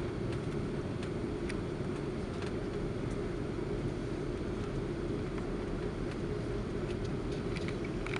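Cabin noise inside an Airbus A330-200 taxiing after landing: a steady low rumble of the idling engines and the wheels rolling over the taxiway, with a few faint clicks.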